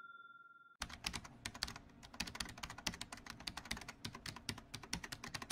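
Computer keyboard typing sound effect: rapid, irregular key clicks that start about a second in, after the last of a ringing chime fades out.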